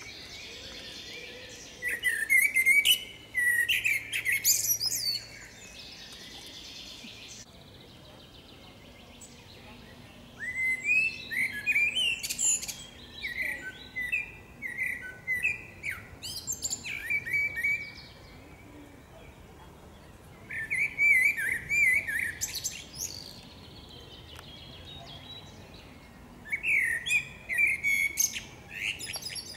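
Eurasian blackbird singing: four song phrases of quick warbled notes with high twittering, separated by pauses of a few seconds.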